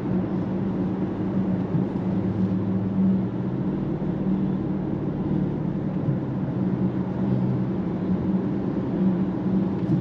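Steady in-cabin noise of a 2024 Mercedes-AMG GLE 63 S cruising at highway speed: a low, even hum from its twin-turbo V8 under the hiss of tyres on a wet road.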